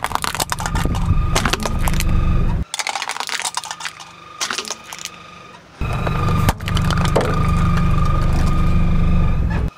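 Car tyre rolling slowly over asphalt and crushing soft rubber toys, with gritty crackling and crunching over a low rumble. The rumble comes in two long stretches, with a quieter, sparser crackle between them.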